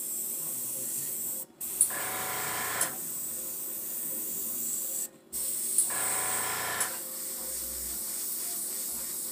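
Airbrush spraying paint onto a denim jacket: a steady hiss of air, cutting out briefly twice.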